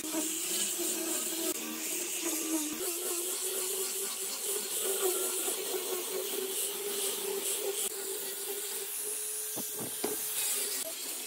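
Angle grinder with a sanding disc on a rubber backing pad, running with a steady whine while the disc sands across wooden boards with a hiss. Two light knocks near the end.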